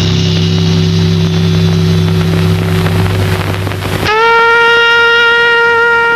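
Film score music: low sustained tones for about four seconds, then a wind instrument comes in on a long held note, sliding up into pitch and holding it steady.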